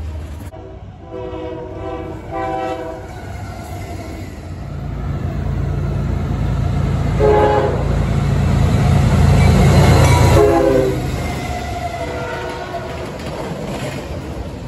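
CSX freight locomotive sounding its horn as it approaches and passes: two short blasts about a second or two in, another around seven seconds, and a longer one near ten seconds that drops in pitch as it goes by. Under it the locomotive's engine rumble builds to its loudest around the horn's last blast, then eases into the steady rolling of the double-stack container cars.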